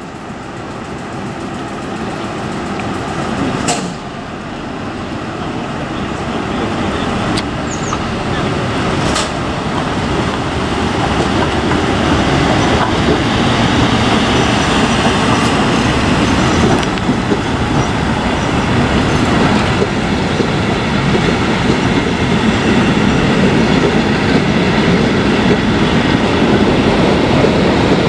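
A 1915 Pa electric locomotive and its wooden passenger carriages rolling past, growing steadily louder for the first dozen seconds as the train draws alongside, then holding a steady rolling rumble. A few sharp clicks stand out near the start.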